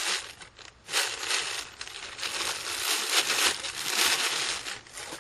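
Packaging crinkling and rustling in irregular bursts as a cordless impact driver is unwrapped, dying away near the end.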